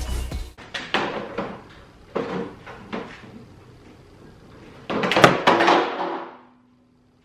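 A few knocks from a rear spoiler being handled, then, about five seconds in, the loudest clatter of the spoiler hitting the ground and rattling for about a second.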